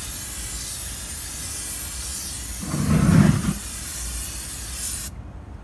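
Aerosol cooking spray hissing in one long continuous spray onto a grill topper over a lit gas grill, cutting off about five seconds in. A brief louder, lower whoosh comes about three seconds in.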